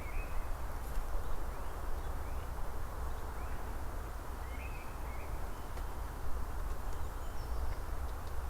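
Forest ambience: a steady rushing noise with a low rumble underneath, and a small bird giving short chirps a few times.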